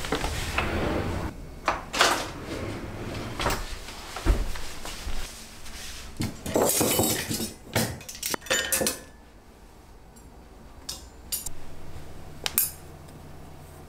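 A kitchen drawer sliding open, then metal cutlery and utensils clinking, tapping and being set down, in scattered light knocks. The clinks thin out toward the end.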